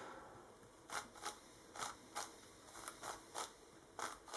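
YongJun MGC 7x7 magnetic speed cube being turned by hand: quiet plastic clicks of its layers snapping round, often in quick pairs, a couple of moves a second.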